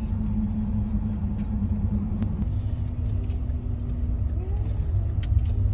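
Cabin noise of a VW T6 California camper van on the move: a steady low engine and road rumble with a steady hum whose pitch shifts slightly a little over two seconds in.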